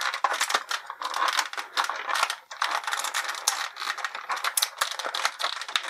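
Thin clear plastic blister tray crackling and crinkling as an action figure is pulled and worked free of it: a dense, continuous run of small sharp clicks and crackles.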